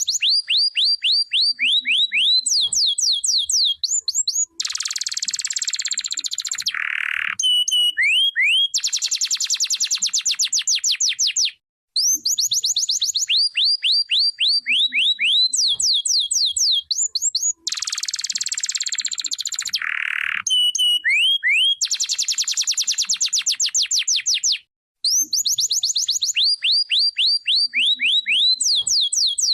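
Domestic canary singing: rapid runs of quick falling whistled notes alternating with dense, high buzzy rolls. The same song sequence repeats about every 13 seconds, with brief pauses between.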